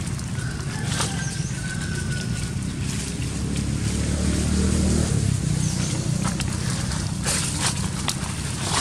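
Dry fallen leaves rustling and crackling a few times as monkeys move through the leaf litter, over a steady low rumble that swells about four seconds in.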